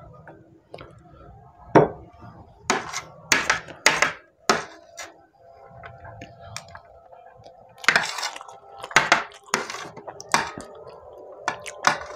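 Metal spoon scraping and clinking on a serving platter as leftover pulao rice is gathered up, in uneven clusters of sharp scrapes.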